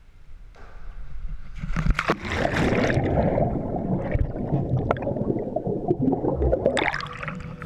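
Pool water splashing as a GoPro camera is plunged under the surface about two seconds in, then muffled underwater bubbling and gurgling from a swimmer blowing air out through his mouth and nose in front of the camera.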